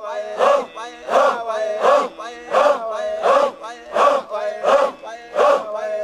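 A crowd of men chanting in unison, the voices swelling in a steady rhythm about every three-quarters of a second.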